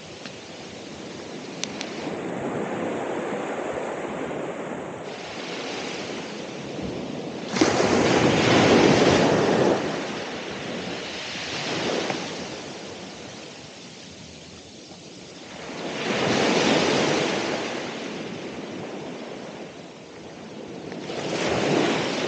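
Ocean surf: waves breaking and washing up the shore in repeated swells. The loudest is a sudden crash about a third of the way in, followed by smaller surges every four to five seconds.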